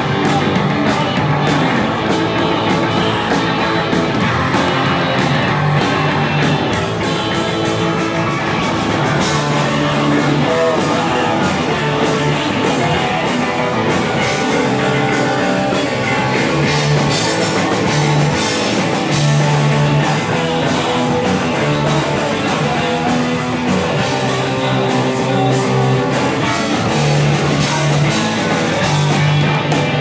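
A rock band playing live: electric guitars over a drum kit, loud and continuous.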